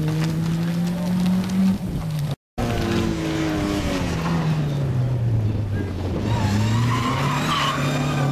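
Rally car engine held at high revs with its pitch climbing, cut off short; then a Ford Escort Mk2 rally car's engine, its revs falling for a couple of seconds and then climbing again as it pulls away.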